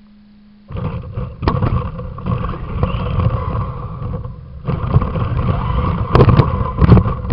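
Redcat Volcano RC monster truck driving, heard from a camcorder mounted on its cab: loud motor and drivetrain running with a steady whine, rattling and knocks from the bumps. It starts about a second in, eases off briefly halfway, then picks up again, with sharp knocks near the end.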